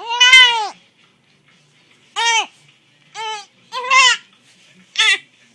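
A one-month-old baby making short, high-pitched fussy cries, each rising and falling in pitch. The first cry is longer and loudest; four brief ones follow about a second apart.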